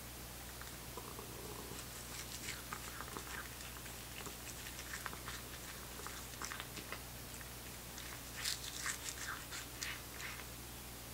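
A cat chewing dried bonito flakes from a bowl: quick, soft crackling and clicking bites that start about two seconds in and come thickest near the end.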